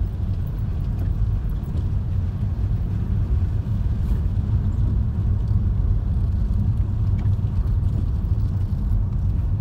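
A car being driven, heard from inside the cabin: a steady low rumble of engine and tyres on the road.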